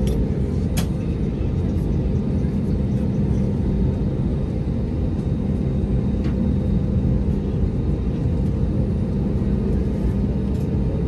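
Airbus A320 cabin noise during taxi: the engines at low taxi power and the rolling airframe make a steady low rumble with a faint hum, crossed by a few light clicks.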